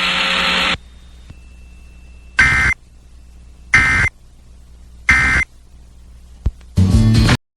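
Emergency Alert System end-of-message data bursts: three short, identical, harsh digital squawks about a second and a half apart, signalling the end of the relayed severe thunderstorm warning. A hiss cuts off just before them, and a brief burst of other station audio comes near the end before an abrupt cut.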